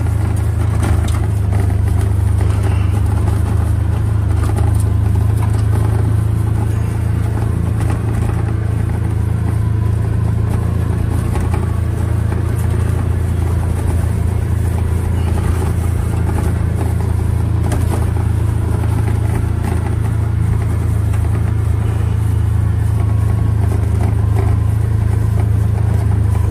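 Polaris XP 1000 Crew side-by-side's twin-cylinder engine running steadily while the vehicle moves, heard from inside the cab as an even low drone.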